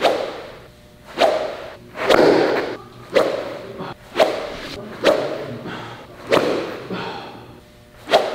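A 6-iron golf club swung at full speed through the air again and again, each swing a sharp swoosh. There are about eight swings, roughly one a second.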